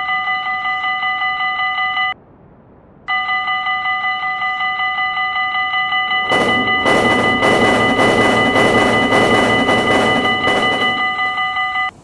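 Railroad crossing warning bell ringing: a fast-repeating electronic ding with several bright tones. It breaks off about two seconds in and starts again a second later. From about six to eleven seconds a loud rushing noise with a quick rhythm sounds over it, and the bell cuts off just before the end.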